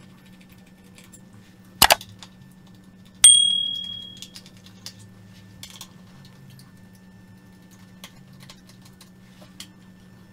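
Precision screwdriver taking out the hard-drive screws in a laptop chassis: a sharp click about two seconds in, then a metallic clink that rings briefly, with faint small ticks of the driver tip and screws after it.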